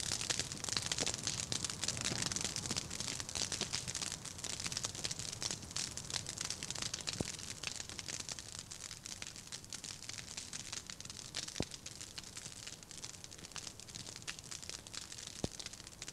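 Open fire crackling steadily, with a few sharper pops, growing somewhat quieter over the stretch.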